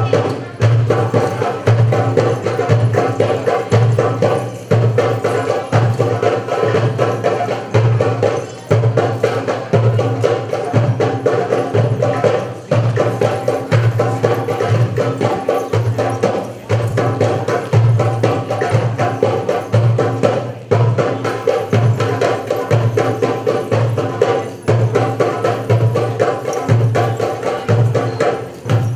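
Live hand drumming for belly dance: a steady, driving rhythm with a strong low beat about twice a second and quicker, lighter strokes over it.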